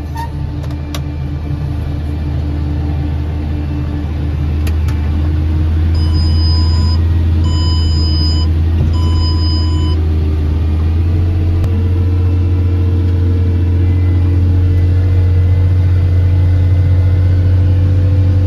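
Tractor engine heard from inside the cab, a loud low drone that grows louder about four seconds in and rises a little in pitch a few seconds later as it pulls the Amazone seed drill. Three short electronic beeps from an in-cab control terminal sound in the middle, spaced about a second and a half apart.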